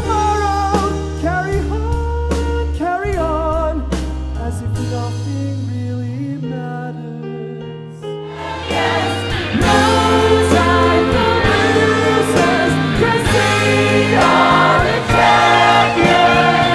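Live musical-theatre number: a male lead singer sings over a band with sustained bass notes. About eight seconds in, a full ensemble choir joins and the music grows louder and fuller.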